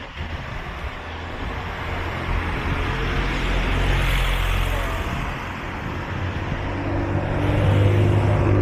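Road traffic: a car passes, swelling to its loudest about halfway through and fading, then another vehicle's engine grows louder near the end.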